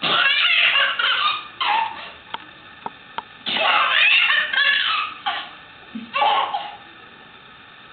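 A child shrieking and laughing loudly in repeated high-pitched bursts. The longest bursts come at the start and about three and a half seconds in, with shorter ones after.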